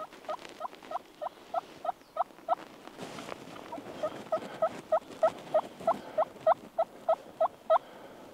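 Merriam's wild turkey hen yelping: two runs of short, evenly spaced yelps, about three a second, the second run louder and longer after a pause of about a second and a half.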